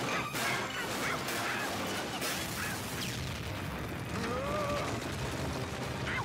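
Animated fight sound effects: several booms and crashes of blaster fire and impacts in the first couple of seconds, then short gliding vocal yelps and grunts over a steady low rumble.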